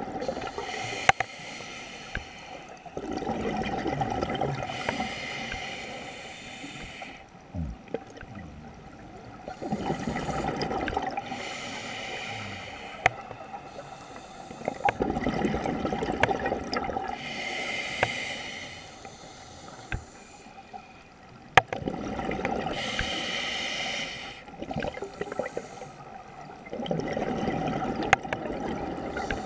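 Scuba regulator breathing underwater: a hiss on each inhale alternating with the rumbling gurgle of exhaled bubbles, about one breath every six seconds. A few sharp clicks stand out now and then.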